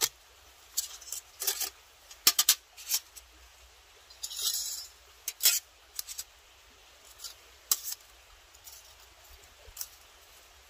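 Thin titanium stove panels clinking and scraping against each other as the stove is slid apart and the plates are stacked: a string of sharp, light metallic clicks, with a short sliding scrape about four seconds in, the clicks growing sparser toward the end.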